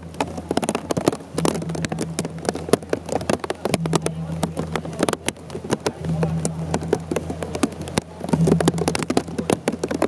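Heavy rain drumming on an umbrella overhead, a dense, irregular patter of drops, with a low hum that comes and goes every second or two.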